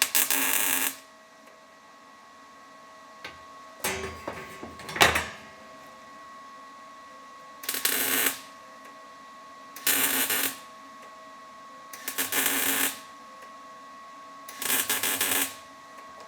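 Welder laying a series of short tack welds on sheet steel: six crackling bursts, each under a second, about two seconds apart, over a steady faint electrical hum.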